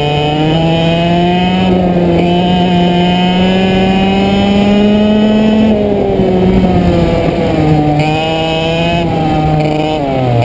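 100cc go-kart's single-cylinder two-stroke engine running hard on track. The revs climb slowly, drop about six seconds in, then fall sharply near the end and pick up again, as the kart lifts off for corners and accelerates out.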